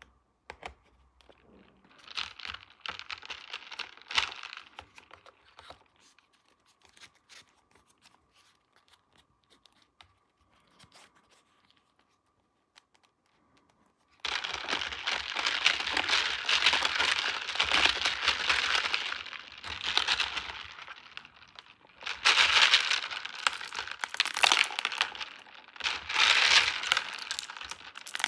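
Toy packaging being unwrapped, crinkling and tearing. Soft rustles in the first few seconds give way to a quiet stretch, then loud, continuous crinkling and tearing from about halfway through to the end, coming in several surges.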